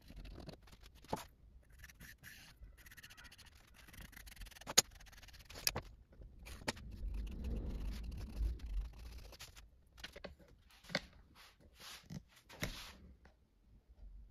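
Carpenter's pencil scratching across an MDF board in short strokes as curved lines are drawn, with a few sharp clicks about halfway through and a fuller rubbing sound just after.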